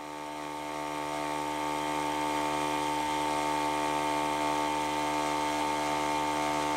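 Small 12-volt electric fuel pump of a home-built diesel fuel polishing rig running, circulating diesel from the tank through a water separator and a filter. It makes a steady, even motor whine that swells over the first second or two and then holds level.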